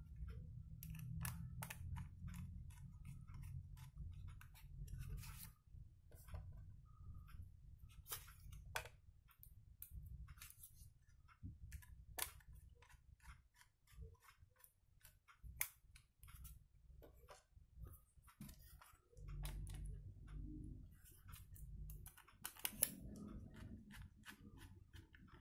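Faint scattered clicks and small ticks of a small screwdriver and metal screws as they are driven back into a laptop's SSD mounting, over a low rumble of handling.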